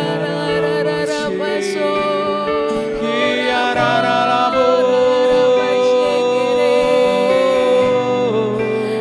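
Keyboard playing slow sustained worship chords, with a voice singing softly over them.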